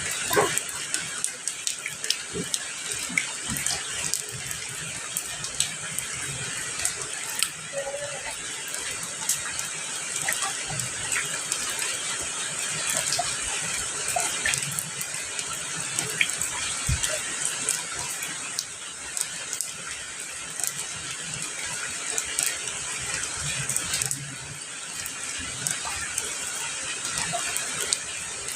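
Steady rain falling, an even hiss sprinkled with many sharp ticks of individual drops striking.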